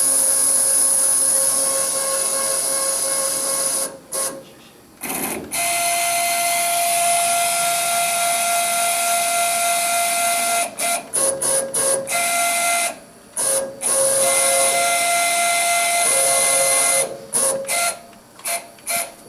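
Stepper motors of a CNC-converted Grizzly G0752 lathe jogging its axes under Mach3: a steady whine over a high hiss that stops and restarts several times, its pitch shifting up and down between moves. The steppers are not yet tuned.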